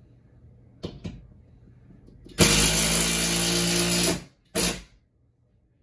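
Cordless drill working on a TV wall-mount bracket fixed into the wall: two quick blips of the trigger, then one loud steady run of nearly two seconds and a short final burst.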